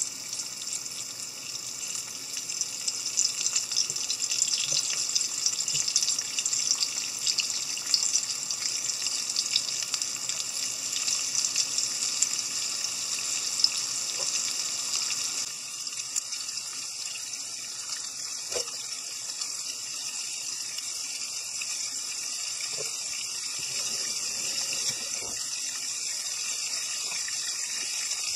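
Flour-dusted sardines sizzling as they shallow-fry in oil in a frying pan: a steady hiss full of fine crackles. It settles to a softer, steadier sizzle about halfway through.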